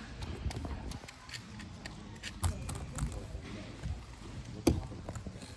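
Indistinct background voices with scattered light clicks and knocks, and one sharper knock near the end.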